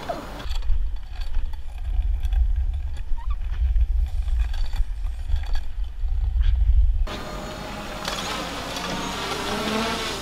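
Wind rumbling over a head-mounted GoPro's microphone as a rider speeds downhill on a kick scooter: a deep, muffled rumble. About seven seconds in it cuts off abruptly to a lighter outdoor hiss of the scooter rolling on the asphalt road.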